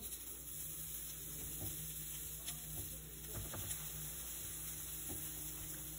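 Faint steady hiss of a hot buttered stovetop griddle as spoonfuls of pancake batter go onto it, over a low hum, with a few soft clicks of the spoon.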